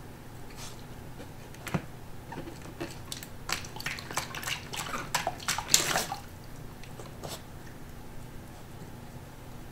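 Corgi puppy playing in her water bowl with her muzzle: a quick run of splashes and clicks from about two seconds in to about six seconds in, then quieter.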